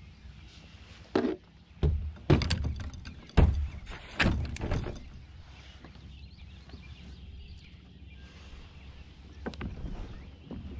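Knocks and thumps of fishing gear being handled in a kayak, about half a dozen sharp ones in the first five seconds, then a low steady background.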